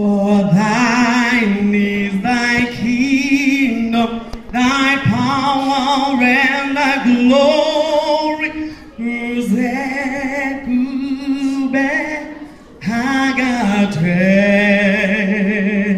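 A woman singing solo into a microphone, unaccompanied, in long phrases of held notes with vibrato, with brief pauses between phrases.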